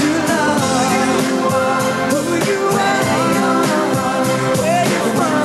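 Live pop song: a man singing lead into a microphone over a backing band with a steady beat.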